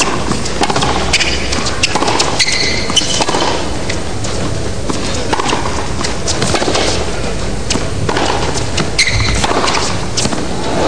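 Tennis rally on a hard court: repeated sharp hits of racket strings on the ball and the ball bouncing, at an uneven pace, over a low steady crowd hum, with a few short squeaks.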